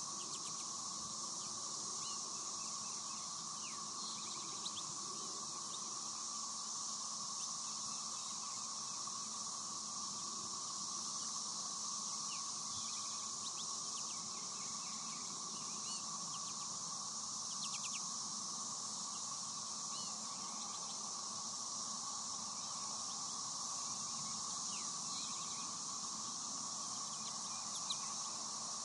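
Outdoor ambience of a steady high insect drone with scattered short chirps from American goldfinches feeding at the tube feeders.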